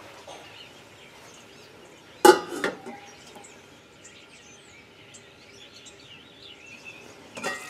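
A lid set down on a stainless steel cooking pot: one sharp metallic clank about two seconds in, a smaller knock just after, and a brief ring. Otherwise faint room noise.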